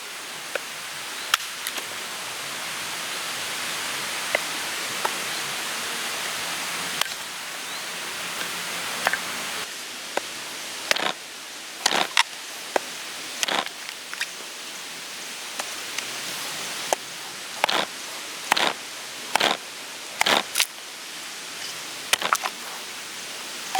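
Steady rain hiss, with scattered sharp taps and knocks over it that come more often and louder in the second half, some in quick pairs.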